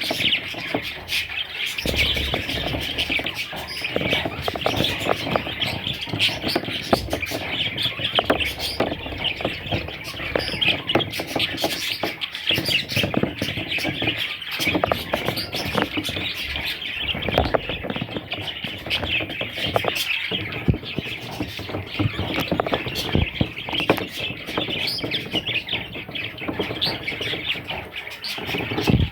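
Budgerigars chirping and chattering continuously, a dense mix of overlapping chirps and short clicks from several birds at once.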